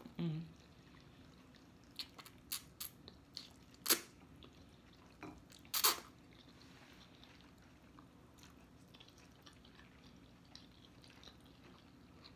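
People slurping and chewing ramen noodles: a few short, sharp slurps, the loudest about four and six seconds in, with small wet mouth sounds between.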